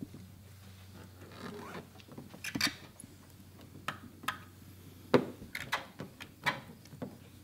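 A squeegee and fingers rubbing and scraping over wet Xpel Stealth paint protection film as it is pressed onto a car's front bumper: a string of short, irregular scrapes that begin about two seconds in.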